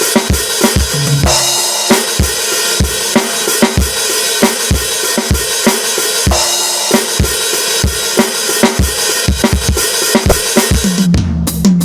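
Aroma TDX-15S electronic drum kit playing a steady beat of bass drum and snare hits under continuous cymbal wash, with a short tom fill about a second in. Near the end the cymbals stop and lower pitched tones come in.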